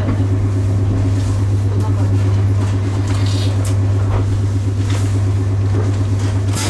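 JR East 719 series AC electric multiple unit coming to a stand at a platform, heard from the driver's cab: a loud, steady low electrical hum from the train's equipment, with a few faint clicks.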